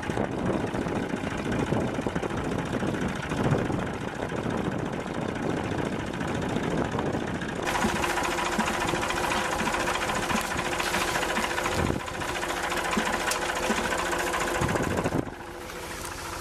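Tractor engine running steadily as it pulls a potato planter. About eight seconds in the sound cuts to a closer, brighter mechanical running with steady tones from the planter's rotating feeder wheel and the engine, and it changes again shortly before the end.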